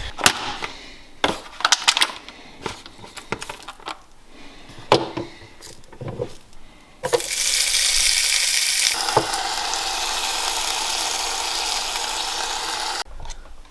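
Clicks and knocks of kitchen handling, then about seven seconds in a sudden steady sizzle of bacon frying in a hot pan, which cuts off abruptly near the end.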